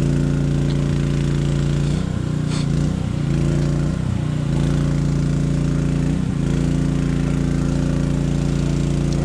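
Small engine running steadily, the generator powering the electrofishing gear. Its pitch sags briefly a few times.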